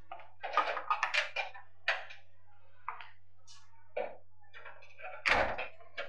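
A wooden door being handled: a run of light taps and clicks, then a heavier thunk about five seconds in, over a low steady hum.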